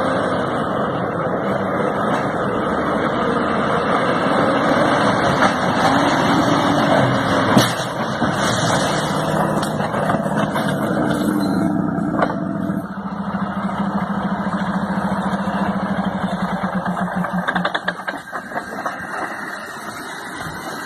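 Heavy truck engine running, with one sharp loud knock about seven and a half seconds in. Later the engine settles into a steady drone that fades near the end.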